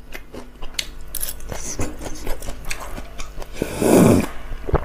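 Close-up eating sounds: chewing fried food, with small clicks of chopsticks. About three and a half seconds in comes a loud slurp from a bowl of thin drink.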